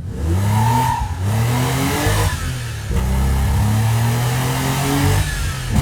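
Alpina B12 5.0's M70 V12 engine accelerating under load through the gears of its six-speed manual gearbox: the revs climb, fall back at each gear change (about a second in, near three seconds and near the end), then climb again.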